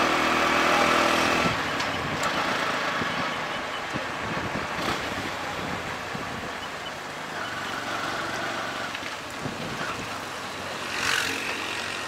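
Auto-rickshaw ride, heard from inside the three-wheeler: the small engine's steady note drops away about a second and a half in, leaving mostly wind and road noise. A brief louder rush of noise comes near the end.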